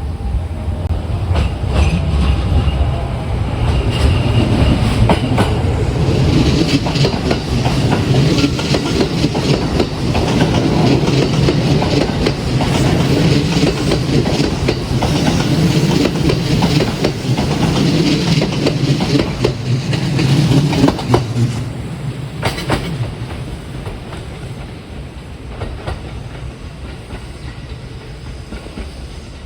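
Kintetsu 1253-series and 2800-series electric train running past, wheels clacking over rail joints, then growing quieter over the last several seconds.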